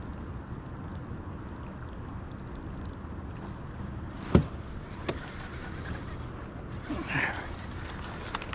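Steady low rush of river water and wind around a kayak, with one sharp knock about four seconds in and a lighter click about a second later.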